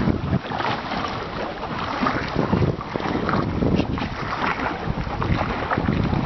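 Wind buffeting the microphone in uneven gusts, a noisy rush that swells and fades, over the sound of choppy lake water.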